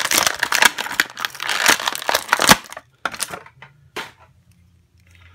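Clear plastic packaging crinkling and crackling as an action figure is worked out of it by hand, for about three seconds, followed by two or three single clicks.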